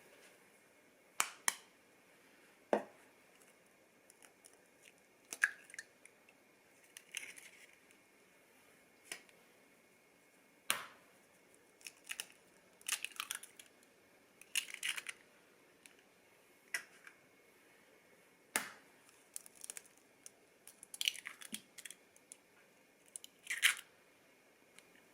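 Small handling sounds: irregular sharp clicks and taps with brief rustling or scraping noises, a second or two apart.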